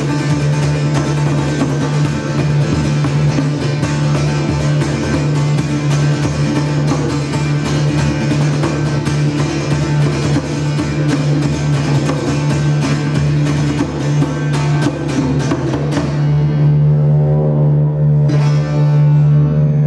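Live ensemble music: a long-necked lute plucked and a djembe played over a steady didgeridoo drone. About 16 seconds in the drumming and plucking stop, leaving the drone sounding with a few sustained notes.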